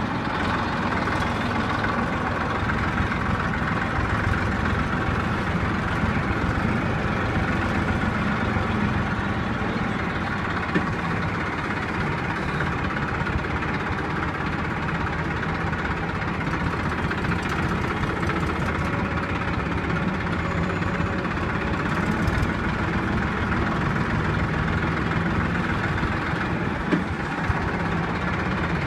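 Tractor's diesel engine running steadily at low speed, heard from the driver's seat beside the upright exhaust stack.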